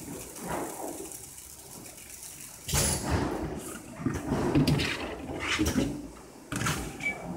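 Plastic buckets being handled at a heat transfer label printing machine. About three seconds in, irregular knocks, scrapes and rustles start as a printed bucket is lifted off the metal mandrel and a fresh one is pulled from a stack, with another short knock near the end.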